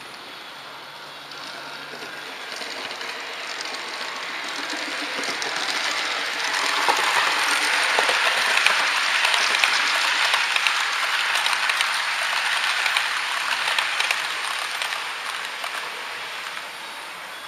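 HO-scale model passenger train passing close by on the adjacent track, its wheels clattering over the rail joints. The rattle swells over several seconds, stays loud in the middle, then fades near the end.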